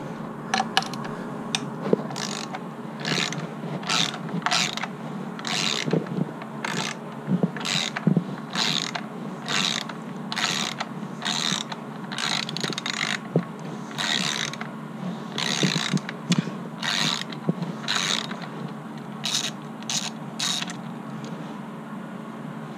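Quarter-inch Husky socket ratchet clicking in many short runs of strokes as it turns out 10 mm bolts.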